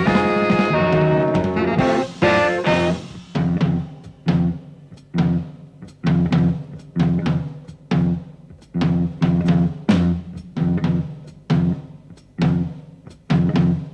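Live jazz-fusion band music: the held ensemble chords break off about two seconds in. From there the drum kit and bass play a sparse, repeated figure of punchy accented hits, a little faster than one a second.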